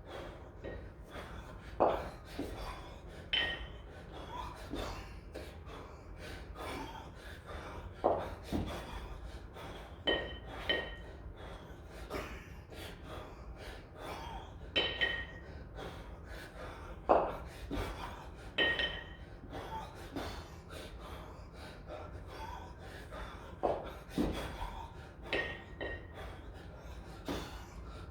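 A kettlebell lifter working with two 24 kg kettlebells, breathing hard in short, sharp breaths every second or two. Every few seconds comes a metallic clink with a brief ring.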